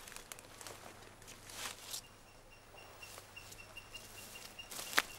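Quiet outdoor garden ambience: soft rustling for the first couple of seconds, then a high chirping repeated about four times a second, with one sharp click near the end.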